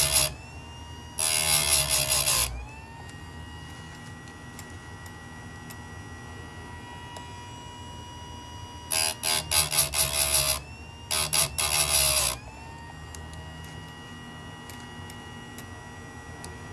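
Chicago Electric electric chainsaw chain sharpener: its grinding wheel bites into chain cutter teeth in harsh grinding passes, one about a second in and two more about nine and eleven seconds in. Between the passes the motor runs on with a steady whine that rises back in pitch as each grind lets off. The teeth being ground are damaged, shortened cutters being brought back into line.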